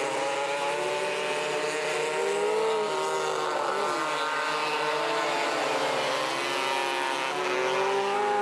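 A pack of 270cc micro sprint race cars running together at high revs, several engine notes overlapping. Their pitch dips and climbs again as the cars lift off for the turns and accelerate out, about four seconds in and again around six seconds.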